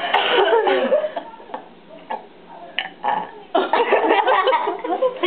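A young boy burping again and again: a run of short burps in quick succession, about ten in a row.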